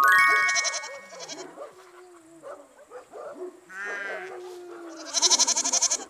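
A goat bleating with a quavering call about four seconds in, over light background music. A quick rising chime opens, and a twinkling jingle sounds near the end.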